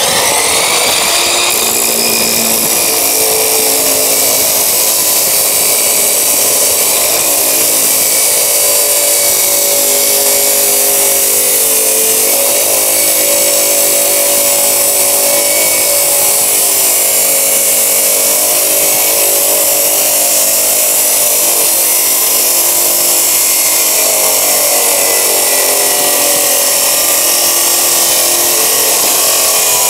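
Hukan 2250 W abrasive cut-off saw running under load, its abrasive disc grinding steadily through a steel bar studded with screws in one long continuous cut. The motor's pitch wavers slightly as the disc bears on the metal.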